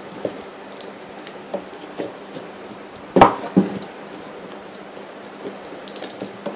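Scissors snipping and scraping at the tape sealing a small cardboard box, with light clicks throughout. About three seconds in come two louder knocks, half a second apart, as the box is handled.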